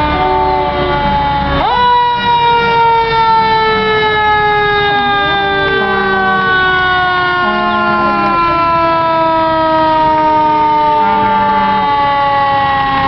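Fire engine's siren wound up sharply about two seconds in, then winding down slowly in one long falling tone as the truck passes, typical of a mechanical siren coasting down. A few short low horn blasts sound over it.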